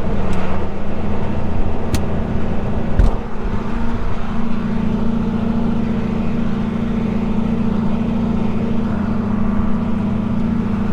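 John Deere 4230 tractor's six-cylinder diesel engine running steadily at working speed with the PTO engaged, driving the unloading wagon behind it. There are two sharp knocks about two and three seconds in.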